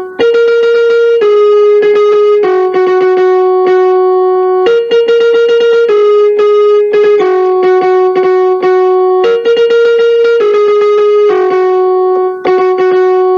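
Instrumental background music: sustained keyboard notes, the held note changing about once a second, with no voice.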